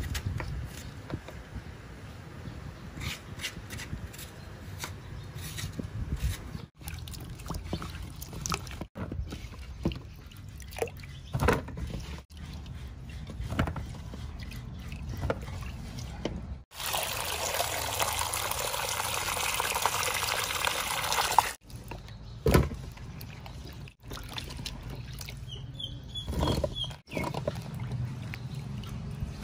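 Food-preparation sounds in several short takes, cut off abruptly at each edit: scattered light knocks and clatter of handling. For about five seconds in the middle, a steady stream of water pouring.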